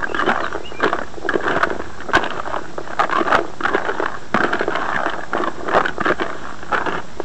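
Carp groundbait of pellets, seeds and boilies, wet with molasses, being stirred with a stick in a plastic bucket: a continuous, irregular scraping and rustling of the particles with sharp little clicks.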